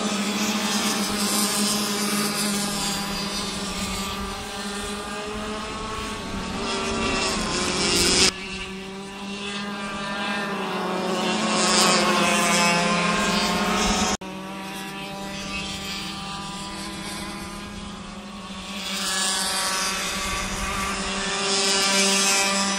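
Go-kart engines racing at high revs, their pitch rising and falling as the karts accelerate and slow through the corners. The sound swells as a kart passes close by, and it jumps abruptly twice.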